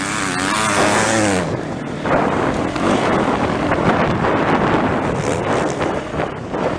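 Dirt bike engine revving up and down as it is ridden over a rough motocross track, heard from an onboard camera. After about a second and a half the engine is buried under a rough rush of wind and rattling knocks.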